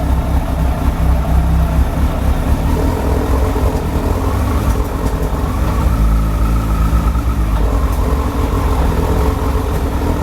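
2006 Suzuki GSF1200 Bandit's carburetted inline-four running at low revs, its note shifting a few times as the throttle moves. Just above idle it sneezes back into the carburettors, a fault the owner says began after adjusting the valves.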